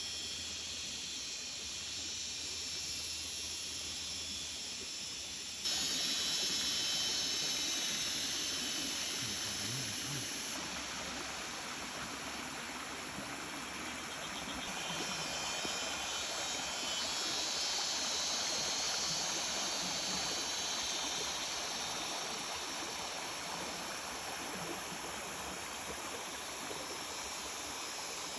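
Steady rush of running water, as of a stream. It jumps abruptly louder and brighter about six seconds in.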